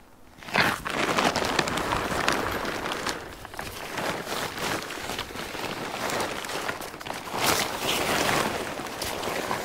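Steady, loud rustling and crinkling of sheet material being handled and shaken out, starting about half a second in.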